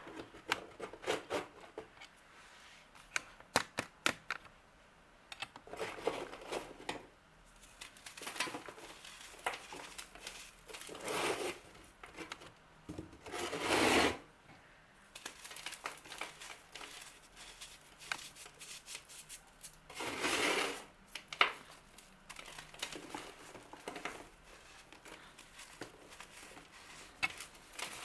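Something brittle being crushed and crumbled: a run of sharp snaps and clicks, then repeated crackling, crunching bursts of about a second each.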